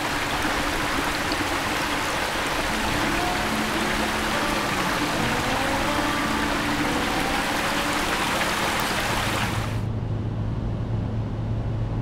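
A fast, shallow river rushing over a stony bed, a steady noise of running water. About ten seconds in it cuts off sharply and gives way to the quieter, steady low hum of a car driving.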